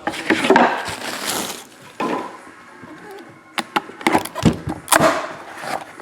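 Cardboard and plastic packaging of a trading-card box being opened and handled: rustling and scraping, then several sharp clicks and snaps in the second half.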